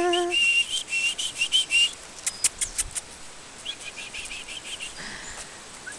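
A held, wavering whistle-like note cuts off just after the start. It is followed by short high chirps, a few sharp clicks, and a quick run of chirps about four seconds in.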